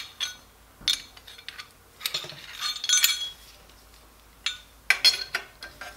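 Metal clinks and clanks of a steel exhaust band clamp being handled and fitted onto a stainless exhaust pipe, in a few short irregular knocks with a busier cluster partway through.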